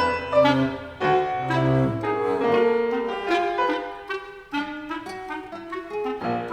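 Contemporary chamber music for clarinet, violin, double bass, guitar and piano: short, scattered notes and clusters with sharp attacks over low sustained string notes that drop out about two seconds in, leaving a sparser, fragmented texture.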